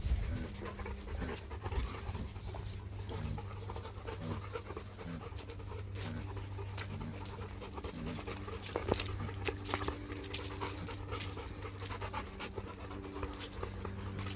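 A dog panting steadily close by.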